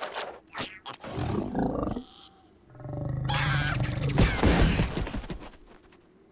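Cartoon crocodile's low growling roar, starting about three seconds in and fading over the next two or three seconds, after a couple of short cartoon sound effects.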